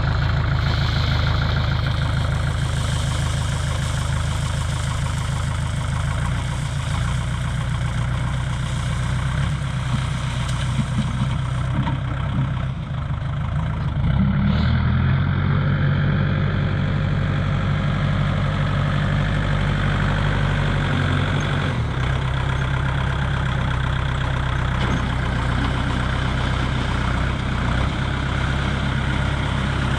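Kubota tractor's diesel engine running steadily, getting louder about halfway through as the revs or load change, then easing slightly later on.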